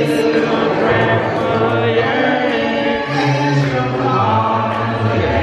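Church choir and congregation singing a worship song together, many voices holding long notes over a low bass part.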